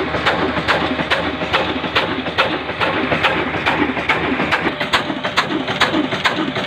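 A roughly 100-year-old black-oil (heavy-oil) engine running a flour mill, beating out an even knock about three times a second. A bird coos over it several times.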